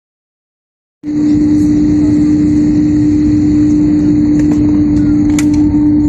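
Airliner cabin noise of the jet engines running steadily while the plane taxis, a constant low hum over an even rushing noise, cutting in abruptly about a second in. A single click sounds near the end.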